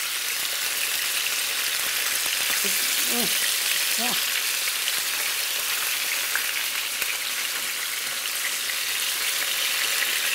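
Floured salt cod (baccalà) pieces sizzling steadily as they fry in olive oil in a nonstick pan, with a couple of light clicks about six and seven seconds in as a spatula and fork turn the pieces.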